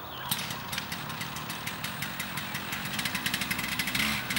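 A small petrol engine running, with a fast, dense rattle of clicks over it from about a third of a second in. It gets louder and starts to rev in the last second or so.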